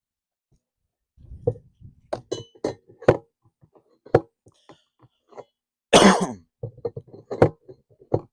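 Metal feeder legs being handled and fitted to the feeder: a series of sharp clicks and knocks at uneven intervals, with a louder short noisy burst about six seconds in.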